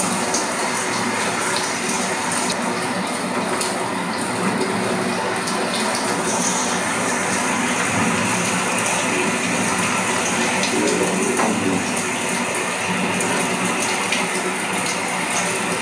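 Rain falling steadily on wet pavement, an even hiss.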